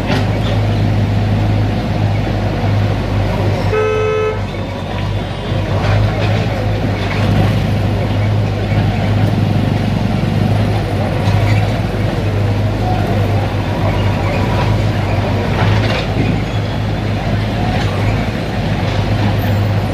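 Steady low engine rumble from an idling vehicle, with one short horn toot about four seconds in.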